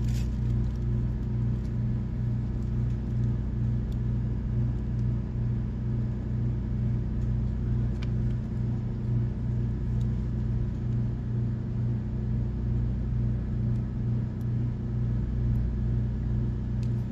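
Steady low machine hum with an even, regular throb, and a few faint clicks of the tablet and box being handled.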